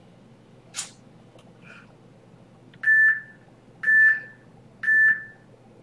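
Workout interval timer beeping three short beeps at the same pitch, about a second apart, counting down the last three seconds of a work interval.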